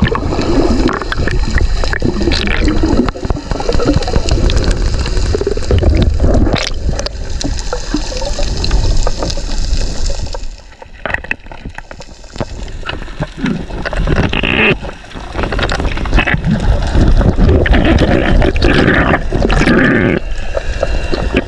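Water gurgling and rushing around an action camera held underwater, heard as a muffled, continuous churn with a heavy low rumble. It drops quieter for a couple of seconds about halfway through.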